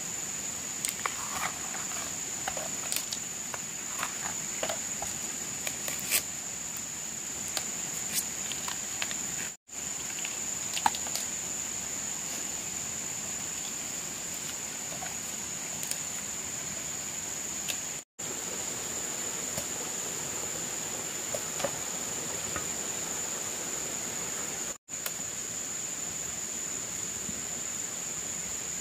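A steady high-pitched chorus of insects, with scattered light clicks and rustles through the first nine seconds or so. The sound cuts out for an instant three times.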